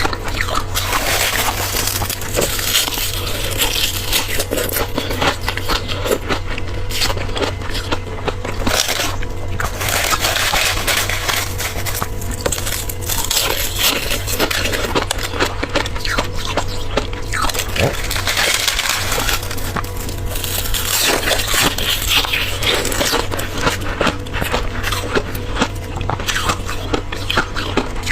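Close-miked crunching and crackling of powdery freezer frost and ice being bitten and chewed, a continuous run of small crisp crackles.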